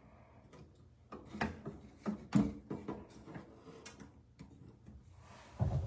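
A run of light, irregular clicks and knocks, with a duller thump near the end: things being handled and set down.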